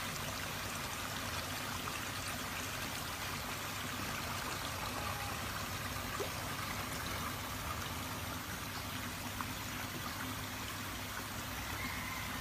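Steady running water in a garden koi pond, an even rushing trickle with no break.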